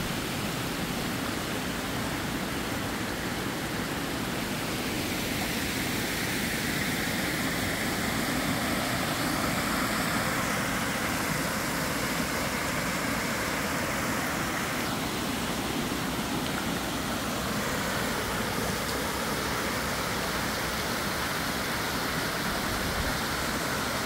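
Water from a reservoir at full capacity spilling over its spillway, a steady rushing noise.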